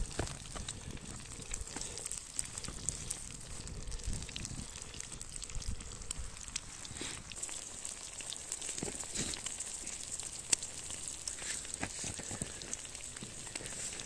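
Campfire crackling and sizzling: scattered sharp pops over a steady hiss.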